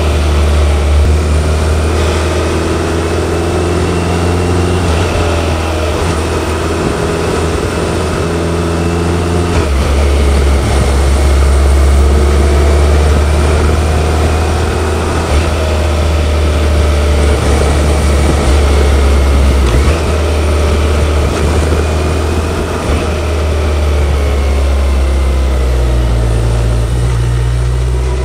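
BMW K1100LT motorcycle's inline four-cylinder engine running under way, heard from the rider's seat. Its steady low tone shifts in steps about ten and twenty seconds in, and again near the end.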